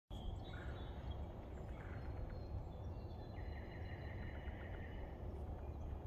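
Low wind rumble on the microphone. Over it, songbirds sing high whistled notes, one of them a long steady song from about halfway. A few faint taps of a pileated woodpecker pecking at a rotten log come in near the end.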